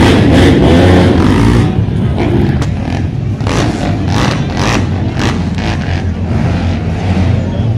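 Racing quad (ATV) engines running on a dirt track, a steady low rumble that is loudest in the first couple of seconds.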